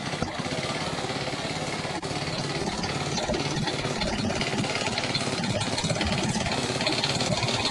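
Junk engine running steadily, driving the HVAC blower of a plywood and air-mattress DIY hovercraft.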